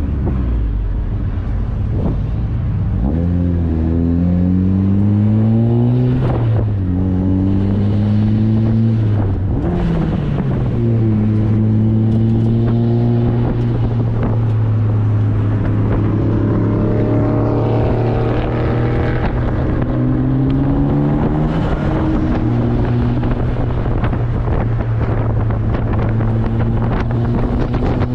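Turbocharged 1.8-litre four-cylinder of a 1999 Mazda Miata pulling hard through the gears, its pitch climbing and then dropping at each of three upshifts in the first ten seconds. After that it runs at a mostly steady pitch with some rises and falls, with wind rushing through the open cockpit.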